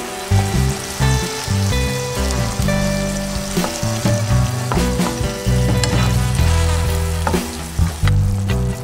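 Diced tomatoes sizzling in hot oil in a frying pan, stirred with a wooden spatula that makes scattered scraping clicks. Background music plays underneath.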